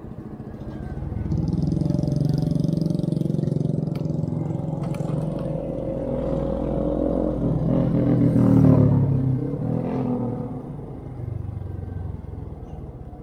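Motorcycle engine running while riding at low speed. It grows louder about a second and a half in, is loudest around eight and a half seconds in, and eases off after about ten seconds.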